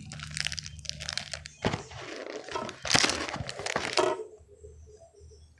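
Packaging crinkling and crackling as it is handled and torn open, with sharp crackles that are loudest about three and four seconds in, then dies down to light rustling.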